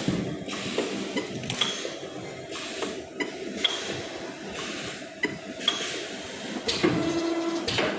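Automatic stainless steel wire basket looping and welding machine running: irregular mechanical clicks and metal clinks over a steady machine hum, with a short steady hum about a second long near the end.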